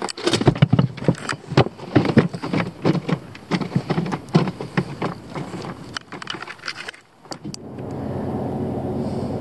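A quick, irregular run of knocks and clatter as the rod and catch are handled on the boat's deck. Then, about eight seconds in, a bow-mounted electric trolling motor starts and runs with a steady hum.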